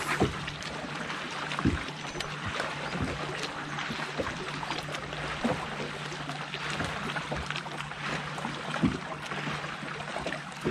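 Electric trolling motor on a bass boat's bow humming steadily, over a soft wash of water and a scattering of light knocks.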